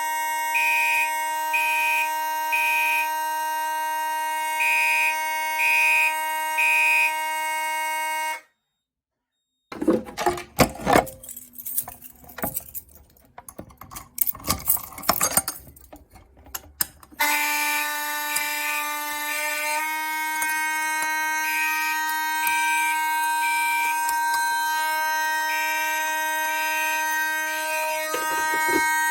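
Fire alarm horns sounding on walk test: one horn holds a steady tone while a Gentex Commander 3 mechanical horn pulses in groups of three (its self-set code 3 temporal pattern). The horns cut off about eight seconds in, irregular clicks and knocks follow, and the horns start again with the same pattern about seventeen seconds in.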